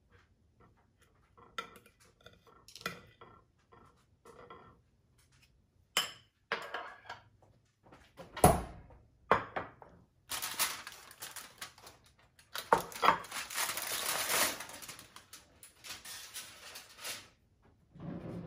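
A metal fork clinks and scrapes on a ceramic plate in scattered light knocks, with a heavier thunk of a bowl set down on the countertop about eight and a half seconds in. Then comes several seconds of crinkling as plastic cling wrap is pulled off a bowl.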